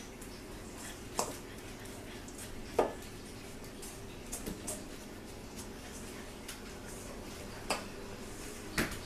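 Wooden spoon stirring a crumb-and-toffee mixture in a stainless steel mixing bowl, with a handful of sharp knocks as the spoon hits the side of the bowl.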